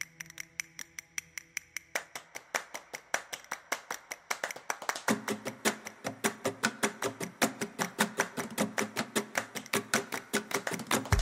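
Instrumental soundtrack intro: a fast, even ticking beat over soft held tones, building as more layers come in and a low bass line joins about five seconds in.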